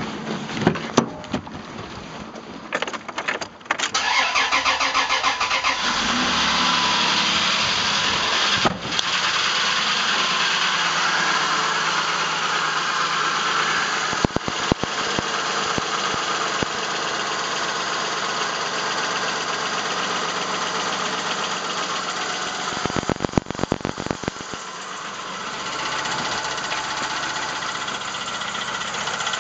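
A 1999 Plymouth Voyager's 3.0 V6 is cranked and catches about four seconds in, then runs steadily with a repetitive tapping knock. The owner found the knock comes from a cracked flywheel.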